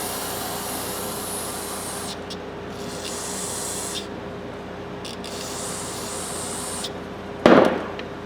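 Black polishing compound being cleaned off a ratchet head: a run of hissing strokes lasting a second or two each, then one loud thump near the end.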